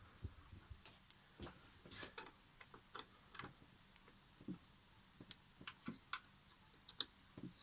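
Faint, scattered clicks and light taps, one or two a second at irregular intervals, as of small metal parts or tools being handled.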